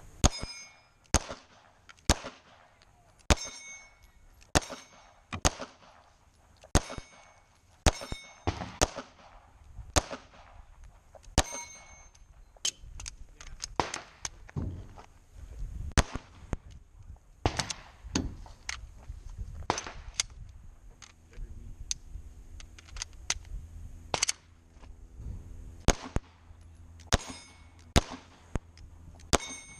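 Semi-automatic pistol fired in quick strings of shots, many followed by the short metallic ding of a steel plate target being hit, with brief pauses between strings.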